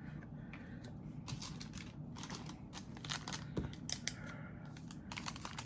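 Trading cards being handled and slid against one another in the hand: a run of quick, irregular papery swipes and light clicks.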